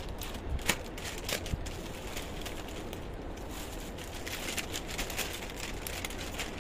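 Faint rustling with a few light clicks and taps: garments being handled and moved between items.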